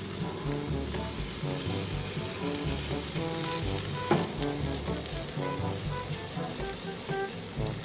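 Pork ribs sizzling on a gas grill while barbecue sauce is brushed on, with the hiss strongest in the first half, under background music.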